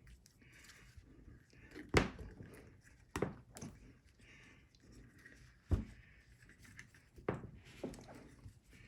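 About six sharp, separate knocks and taps of metal parts, the loudest about two seconds in, as new 608Z ball bearings are fitted back into an ERV blower motor.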